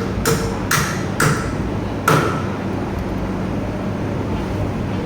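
Four sharp metallic knocks, each with a short ring, in the first two seconds over a steady low hum: metal parts or a tool striking during work on a car's front disc-brake caliper.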